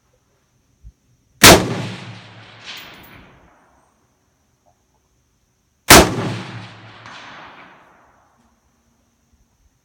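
Two rifle shots about four and a half seconds apart, each followed by a long rolling echo that dies away over about two seconds.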